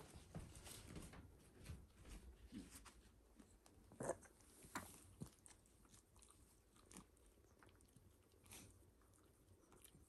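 Very quiet, scattered wet smacking clicks from a Shiba Inu's mouth, lips and tongue working after a drink of water, the loudest about four seconds in.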